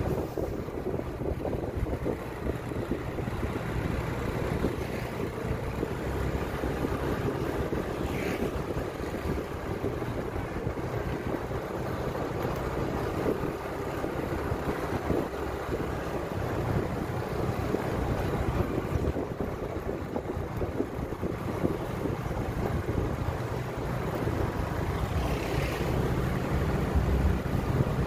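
Steady vehicle running noise on the road with wind buffeting the microphone.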